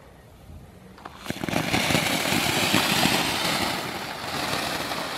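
A Lesli ground firework fountain catches about a second in. It then sprays sparks with a loud, steady hiss and fine crackling.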